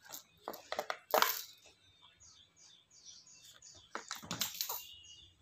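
Short clicks and knocks of hard plastic, in a cluster about a second in and another about four seconds in: a baby handling a lime and toys on a plastic baby-walker tray.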